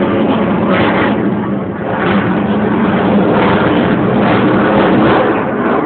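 F-22 Raptor jet engines roaring in a loud, steady rush that swells and eases every second or so as the jet flies its display.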